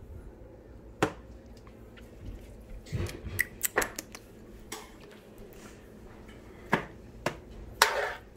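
Kitchen dishes and utensils being handled: a scattering of short clicks and knocks, about a dozen, with a brief scraping clatter near the end.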